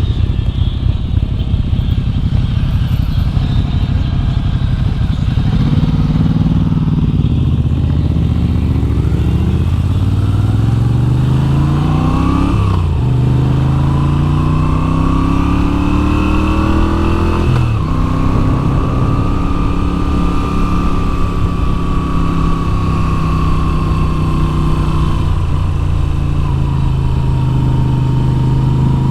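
2022 Moto Guzzi V7's air-cooled V-twin engine pulling away. Its pitch climbs, drops sharply at two upshifts about 12 and 17 seconds in, then holds nearly steady at cruising speed.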